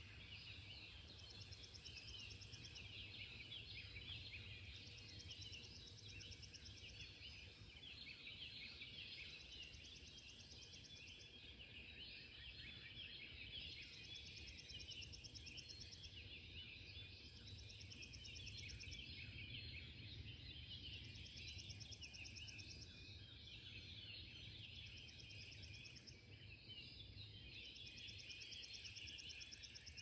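Faint dawn chorus of songbirds, many calls overlapping, with a high trill that repeats about every two seconds over a low steady rumble.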